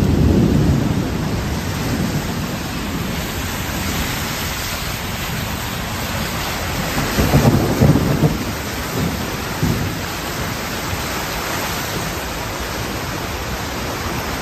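Heavy rain on a car, heard from inside it, with floodwater rushing and splashing under and beside the car as it drives through water covering the road. Louder low surges of splashing come at the start and again around seven to eight seconds in.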